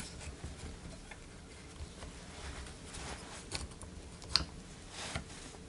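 Faint metal clicks and taps from brake pad retaining pins and the spring being worked into a Porsche 944 non-turbo front brake caliper by hand, with the sharpest click a little over four seconds in.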